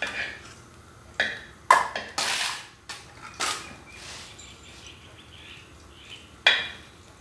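Steel ladle knocking and scraping against a kadai as ghee is stirred: a run of clinks with one longer scrape about two seconds in, then a last clink near the end.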